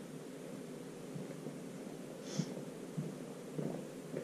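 A single short sniff about two and a half seconds in, over a steady low room hum, with a few soft thuds.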